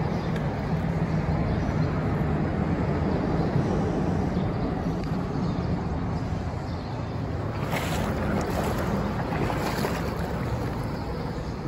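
Shallow river current flowing, a steady water noise, with wind on the microphone.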